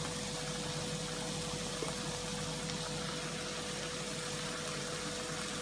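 Saltfish and vegetables frying quietly and steadily in an oiled pot on the stove, over a constant hum with a faint steady tone.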